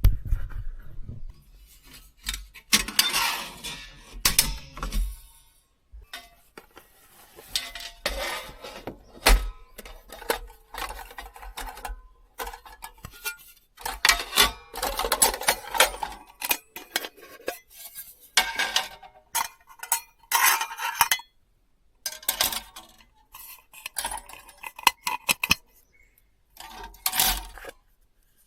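Dishes, pots and cutlery clinking and clattering as they are handled, in irregular bursts of knocks with short pauses between.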